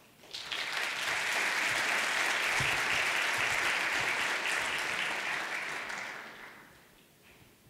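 Large audience applauding: the clapping starts about half a second in, holds steady, then fades out over the last couple of seconds.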